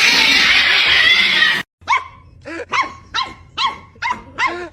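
A loud, harsh, noisy sound for about a second and a half, then after a brief break a small dog yapping, short high barks about two a second.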